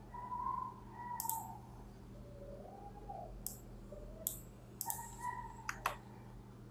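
Computer mouse clicking: about six sharp single clicks spread out, two of them close together near the end, over a faint steady low hum.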